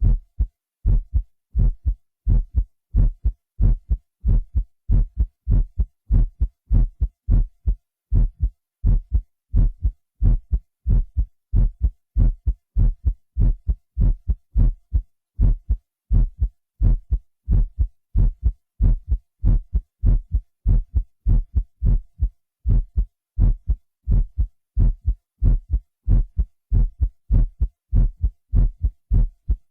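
Human heartbeat recording, digitally processed on a Synclavier system, beating in a steady, even rhythm of deep paired thumps (lub-dub).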